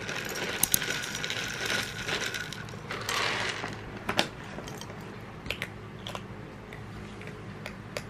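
Dry cat kibble poured from a plastic container into a bowl, a rattling clatter of pellets for about three seconds, then scattered clicks as a cat eats from the bowl.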